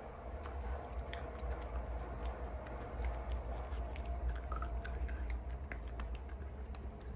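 A dog chewing food, with scattered crisp clicks over a steady low rumble.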